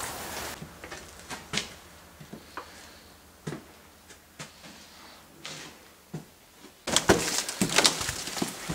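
Scattered soft footsteps and small knocks, then about seven seconds in a quicker, louder run of footsteps climbing wooden stairs strewn with torn paper and broken plaster.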